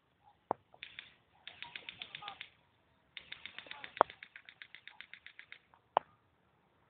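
Airsoft guns firing on full auto: two bursts of rapid clicking at about ten shots a second, the first a little over a second long, the second about two and a half seconds, with a few single sharp snaps between.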